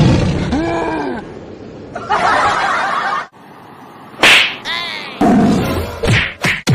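Short cries that rise and fall in pitch, a burst of noise in the middle, then a quick run of sharp whacks, about three a second, near the end.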